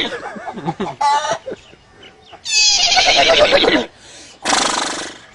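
A man imitating a horse with his voice: a short trill, then a long, shaky whinny falling in pitch, followed near the end by a hard breathy blow like a horse's snort.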